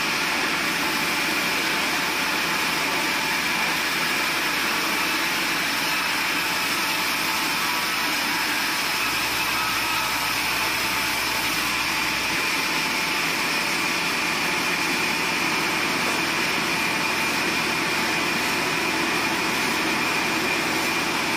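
Band sawmill running steadily: a continuous machine noise with a steady high whine and no breaks or changes in level.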